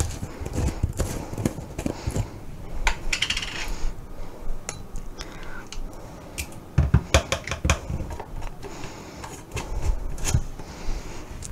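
Metal measuring spoons clinking and knocking as minced garlic is scooped from a jar and tipped into a mixing bowl, with a short scrape and a few sharper clatters of the spoon ring.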